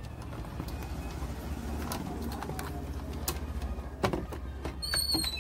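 Steady low hum with a faint hiss from a 12-volt audio amplifier left switched on with its mic volume turned up, broken by a few light clicks. A brief high chirp sounds near the end.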